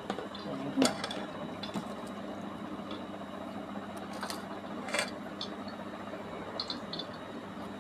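Hands squeezing soaked jujubes in water in a steel bowl, with a few sharp clicks against the bowl: the loudest about a second in, others about four and five seconds in.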